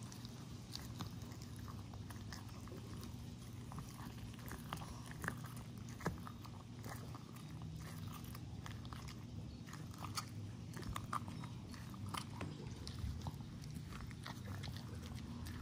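Boston terrier chewing a dried, fur-on lamb ear: irregular crunching and gnawing clicks as it works the hard chew with its back teeth.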